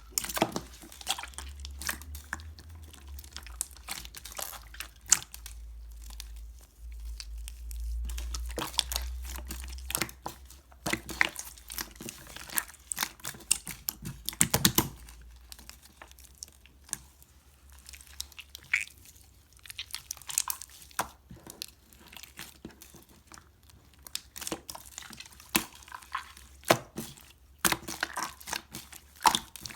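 Clear slime being squished and kneaded by hand as clay is mixed in. It gives irregular sticky clicks and pops.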